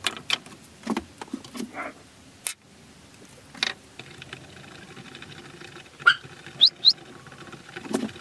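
Light clicks and taps of handling a glue tube, then a wooden stick stirring two-part epoxy on a plastic sheet, with three short, high, rising squeaks of the stick rubbing on the plastic about two-thirds of the way through.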